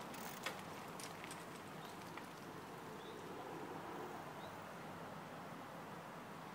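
A bicycle and a small dog passing close by on a dirt towpath: a few sharp clicks and ticks in the first two seconds, the loudest about half a second in, over faint steady outdoor background noise. A few short, faint bird chirps come later.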